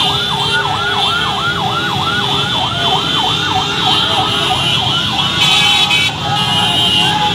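A vehicle siren in fast yelp mode, its pitch sweeping up and down about three times a second, stops about four and a half seconds in; vehicle horns honk near the end over the steady rumble of heavy road traffic.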